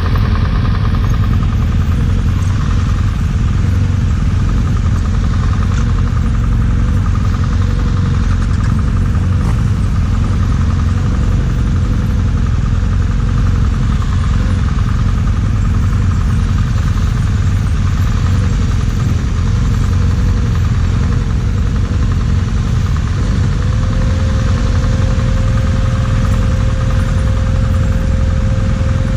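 BMW GS motorcycle running at a steady pace with a dense, unchanging low rumble. A thin steady whine comes in near the end.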